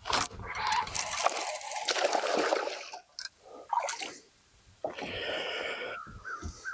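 Water splashing and sloshing in bursts: a loud splash lasting about three seconds at the start, shorter splashes after, and another about five seconds in.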